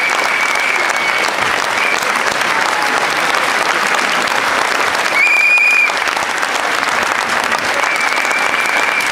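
Audience applauding steadily, with a few long, shrill whistles cutting in: one near the start, one about five seconds in, and another near the end.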